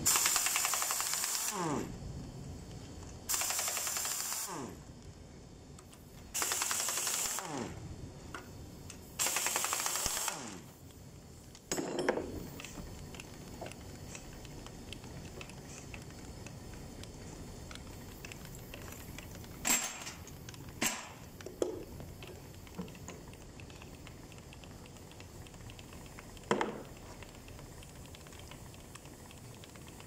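Air impact wrench hammering in four short bursts about three seconds apart, each ending in a falling whine as the tool spins down, while it loosens bolts on the engine's timing gears. After that come a few sharp metal clinks as parts are handled.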